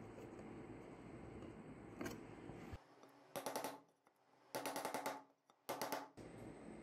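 A wooden dowel rapidly tapping against the inside of a chrome steel motorcycle headlight rim, knocking the bent metal back into shape, in three short bursts of quick knocks in the second half. Before that, a single small click.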